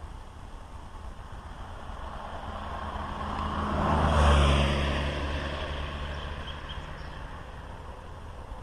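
A motor vehicle driving past, growing louder to a peak about four seconds in and then fading away, with a low engine hum under the tyre noise.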